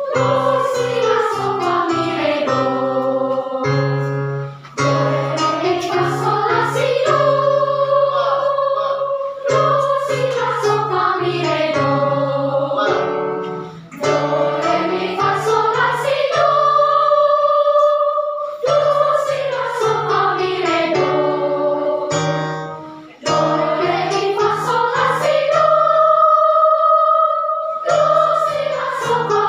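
Children's choir singing a melody in phrases of about four to five seconds, the tune sweeping down and back up, with short breaks between phrases, over a steady instrumental accompaniment.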